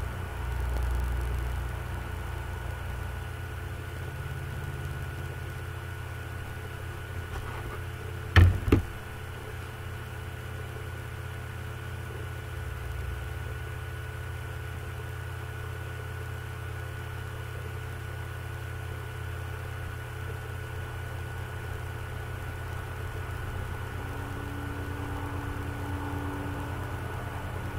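Low, steady rumble of the Union Pacific Big Boy steam locomotive and its train drifting in, picked up by a distant webcam microphone. Two sharp knocks come about eight seconds in.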